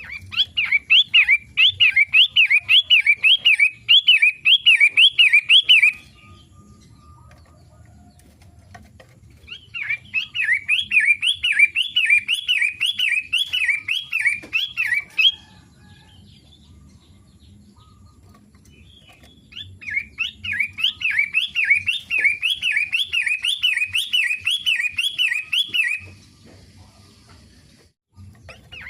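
Long-tailed shrike (pentet) singing in three bouts of about six seconds each, every bout a fast run of repeated notes swooping up and down, with pauses of about four seconds between bouts and a fourth bout starting right at the end.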